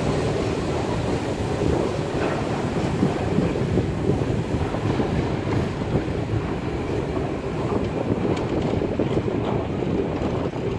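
Steady rumbling running noise heard from the cab of class 50 steam locomotive 50 3648-8 as it rolls along the track, with some wind on the microphone.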